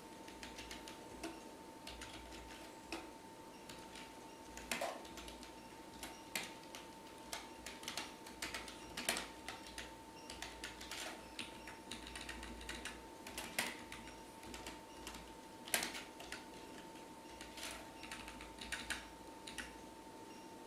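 Computer keyboard typing: irregular clicks of keys being struck, some in quick runs, over a faint steady whine.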